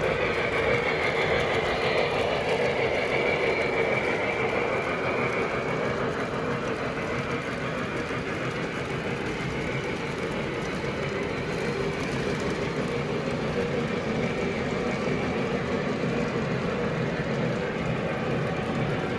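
O gauge toy train running on its track: a steady motor hum with rolling wheel noise from the rails.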